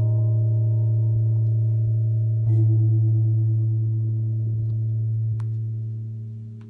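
A deep, low-pitched struck metal instrument, like a gong or large singing bowl, ringing on with a slow fade; it is struck again about two and a half seconds in, with a wavering shimmer in its overtones, and dies away near the end.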